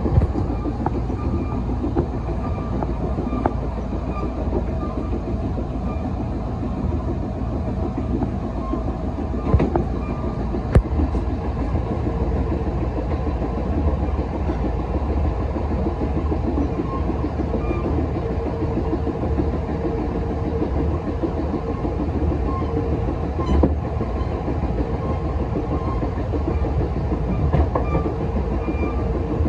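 A Taiwan Railways Chu-Kuang express coach running along the line: a steady rumble of wheels on the rails, with a few sharp clicks as the wheels cross rail joints.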